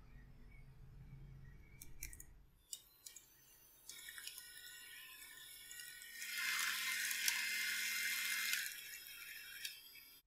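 Electric hand mixer beating wet banana bread batter in a glass bowl: motor whirring with the sloshing churn of the beaters, loudest from about six seconds in to nearly nine, then quieter until it cuts off at the end. A few sharp clicks come about two to three seconds in.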